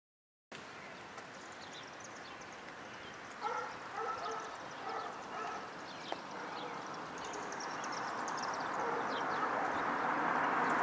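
A dog barks about five times in a short run a few seconds in, with birds chirping. Then the noise of an approaching Amtrak train, hauled by diesel locomotives, grows steadily louder.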